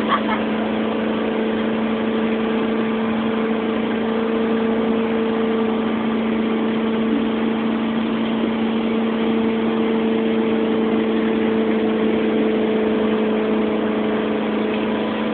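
Motorboat engine running steadily at speed, its drone holding one pitch over a continuous rushing noise.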